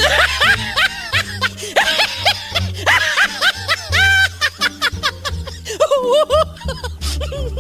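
Upbeat comedy background music with a steady bass line and many short rising-and-falling high notes, mixed with snickering laughter.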